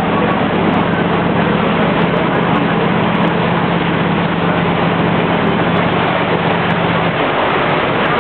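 Motorboat engine running with a steady hum under a dense rush of water and wind noise; the hum changes about seven seconds in.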